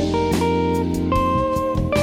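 Background music led by guitar, with held chords changing and a steady beat.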